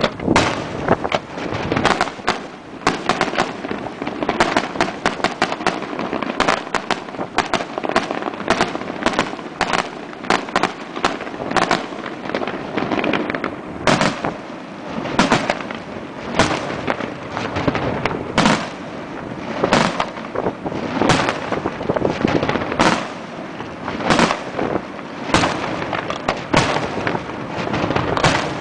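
Daytime fireworks salute (a southern Italian "diana"): aerial shells and firecrackers bursting overhead. In the first half there is a dense, rapid run of bangs, several a second. From about halfway the bangs come singly and louder, roughly one every second and a half.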